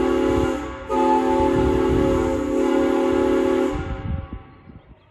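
3D-printed replica of a Santa Fe 6-chime steam whistle blown on compressed air: a chord of several steady notes over a rush of air. The chord dips briefly about half a second in, comes back, then dies away about four seconds in.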